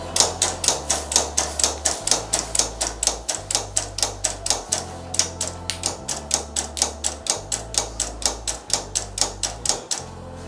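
Silhouette Cameo 3 cutting plotter at work cutting polyflex, making a rapid run of sharp clicks, about five a second, that stops near the end, over background music.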